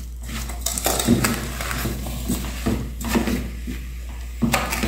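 A spoon stirring pineapple chunks, onion and sugar in a pan on the stove, with irregular scrapes and knocks against the pan.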